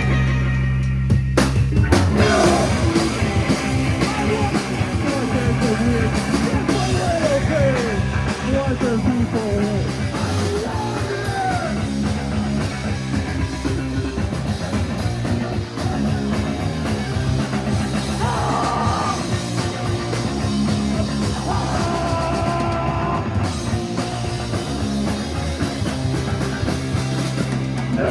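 Live rock band playing loud punk-style rock, with drums, electric guitar, bass and a singing voice.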